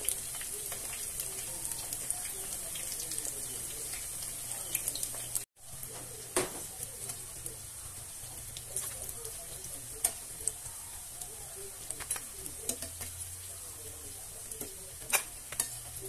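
Eggplant fritters deep-frying in oil on low flame: a steady sizzle with scattered crackles, and metal tongs clicking against the pan as the fritters are turned. The sound drops out for an instant about five seconds in.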